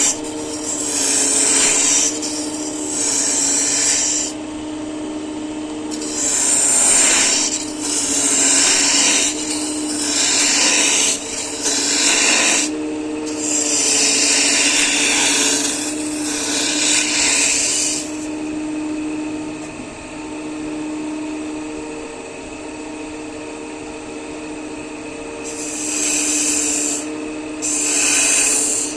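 A woodworking machine runs with a steady motor hum while wood is cut in repeated rasping bursts, each a second or two long. There is a longer stretch past the middle where only the hum is heard.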